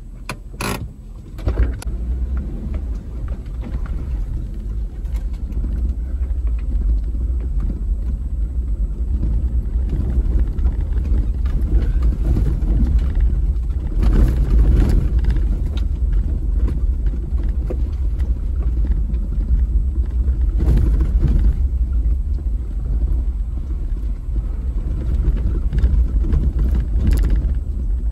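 Toyota Land Cruiser 70 heard from inside the cabin, crawling over a rutted dirt trail: a steady low engine and drivetrain rumble. A couple of sharp knocks come about a second in, and the body jolts and rattles over the bumps.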